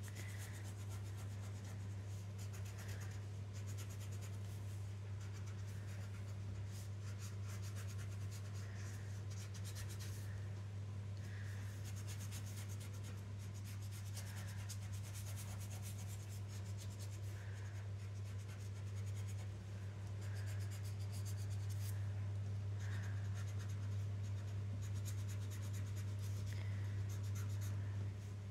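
A graphite pencil scratching across paper in many quick, short sketching and shading strokes, over a steady low hum.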